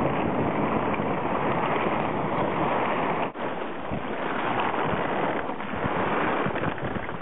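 Wind buffeting the microphone over steady ocean water washing and lapping, with a brief drop in level about three seconds in.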